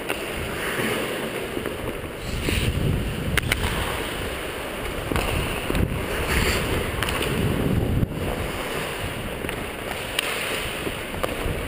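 Ice skating heard from a camera worn by a hockey player: wind rushing over the microphone and skate blades scraping the ice in surges, with a few sharp clicks, about three.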